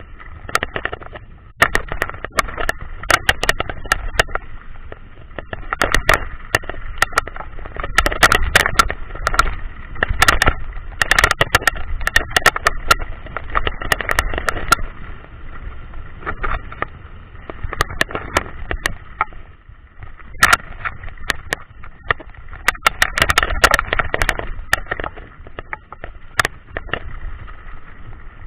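Mountain bike clattering down a rough dirt trail: irregular clusters of sharp knocks and rattles as it jolts over bumps, over a steady rumble of tyres on dirt and rushing wind. The noise eases briefly a few times as the trail smooths.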